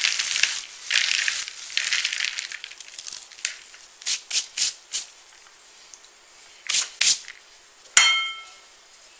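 Saltine crackers crushed in a gloved hand over a mixing bowl: dense crunching and crackling for the first couple of seconds, then single crunches further apart. About eight seconds in, a sharp knock rings briefly.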